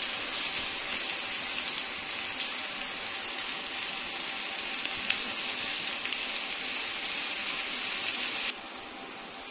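Ginger-garlic paste and browned onion paste frying in hot oil in a pan, a steady sizzle that drops to a quieter hiss abruptly near the end.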